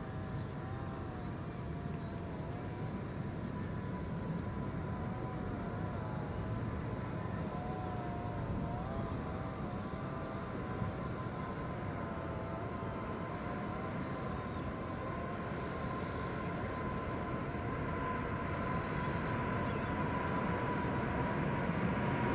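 Boeing 777-300ER's GE90 turbofan engines at takeoff power, heard from a distance: a steady rumble with a held whine and wavering tones above it, growing slightly louder near the end as the jet climbs out.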